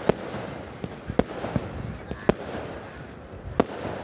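Fireworks going off: four loud, sharp bangs about a second apart, with fainter pops between them over a steady crackling background.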